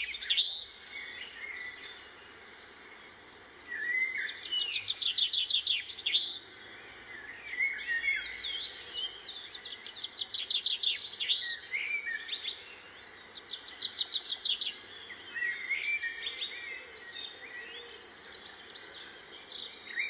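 Birds singing and calling: bursts of fast, high trills and quick sweeping chirps that come again every few seconds.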